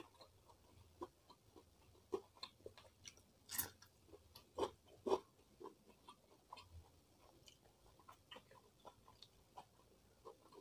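Close-miked chewing of food: a run of soft, wet mouth clicks, with a few louder crisp bites in the middle.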